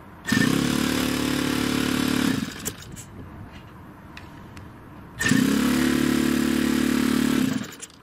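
Handheld electric starter cranking a model aircraft engine through its spinner in two steady bursts of about two seconds each; each burst stops abruptly when the starter is pulled off, and the engine does not catch.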